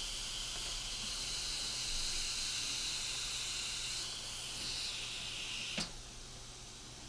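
Steam hissing steadily from an 8-quart Instant Pot's pressure-release valve as the cooker vents its pressure. About six seconds in there is a sharp click, and the hiss drops away.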